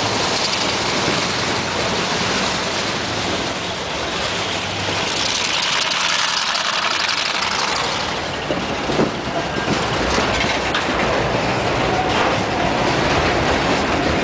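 Freight train wagons rolling past close beside the track: steel wheels on the rails make a steady loud rumble and rattle, with a short run of sharp knocks about nine seconds in.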